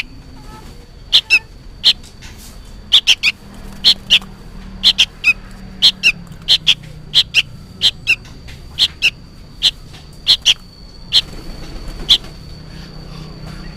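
A fledgling sooty-headed bulbul giving short, sharp, noisy calls, often in quick twos and threes and about two a second. The uploader guesses it is calling for its parent.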